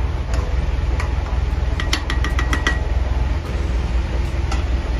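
A metal spoon stirs and scrapes in a metal kadai of prawn masala. Partway through it is tapped quickly on the pan's rim about eight times, each tap ringing. Near the end the lid is handled to cover the pan, over a steady low rumble.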